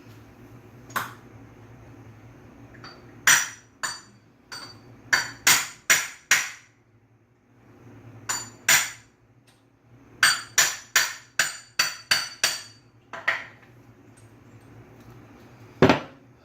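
Hammer blows on a deep-well socket fitted over a Subaru SVX power steering pump shaft, driving the bearing off the shaft. About twenty sharp metallic strikes, each with a brief ring, come in runs of quick blows with short pauses between.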